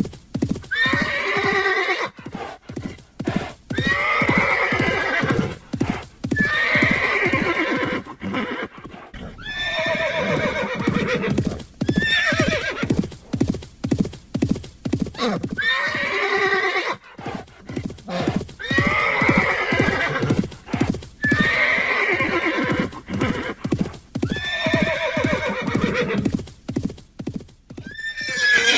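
A horse neighing again and again, about every couple of seconds, each whinny falling in pitch, over a quick, steady clip-clop of hooves.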